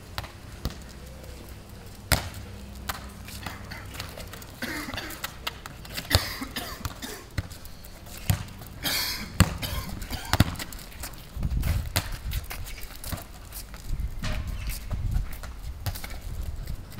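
Football being kicked and bouncing on a tarmac court: irregular sharp thuds, some a second or two apart.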